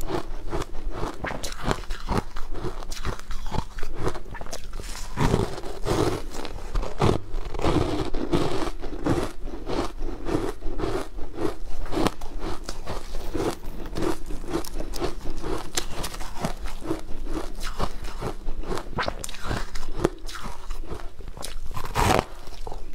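Close-miked crunchy bites into frozen sweet food cubes, followed by rhythmic chewing, about two chews a second through the middle. A loud crunching bite comes about a second before the end.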